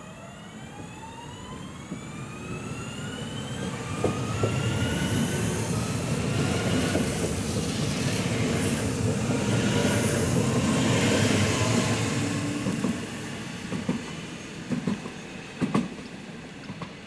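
Electric multiple-unit train passing close by. A whine from its drive rises in pitch over the first few seconds, then loud wheel-and-rail rumble builds as the carriages go past and fades away, with a few sharp clacks near the end.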